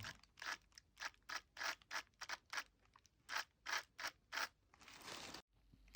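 Short scratchy strokes, about three a second, from hand work on small plastic and metal parts of an HO-scale model locomotive being taken apart, ending in a softer, longer rub near the end.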